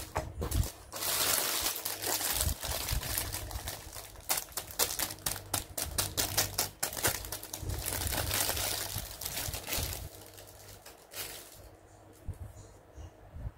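Thin clear plastic packaging crinkling and rustling under the hands, with rapid clicky crackles. It turns much quieter a little before the end.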